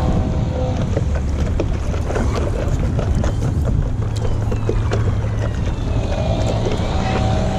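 Wind buffeting the microphone of a camera on the nose of a stand-up paddle board, a steady low rumble, with water splashing and lapping as the paddle dips in stroke after stroke.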